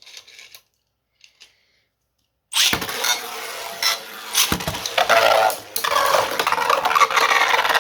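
Beyblade launchers ripped about two and a half seconds in, then 3D-printed Beyblade tops spinning and scraping around the stadium, with repeated sharp clashes as they hit each other.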